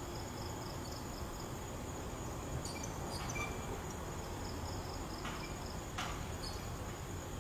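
Crickets and other night insects calling steadily, a high pulsing trill of about five pulses a second over a steady high drone, with a few faint clicks.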